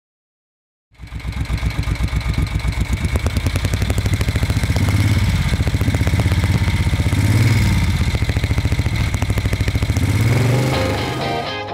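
Vintage motorcycle engine running with an even, rapid pulse of firing strokes, starting about a second in and revved up and back down twice in the middle. Near the end it fades as guitar music comes in.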